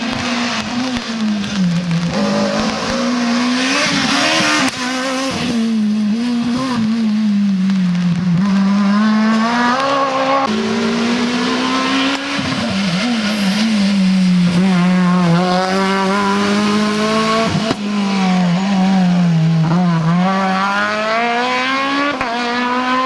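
Rally car engine pulling hard along a special stage, its revs climbing and falling again and again through gear changes, with a few sudden breaks in the note.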